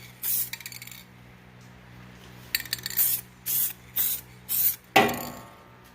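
Touch-up spray paint hissing in a series of short bursts, about six over a few seconds, with a brief metallic rattle near the middle.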